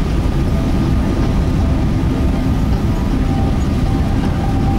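Airliner cabin noise on final approach: a steady, loud low rumble of jet engines and airflow, with a faint steady whine coming in about three seconds in.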